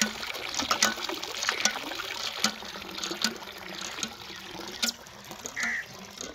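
Water running from a pipe and splashing into a tub, with scattered sharp clicks and splashes as a goat drinks from the stream. A short high call sounds near the end.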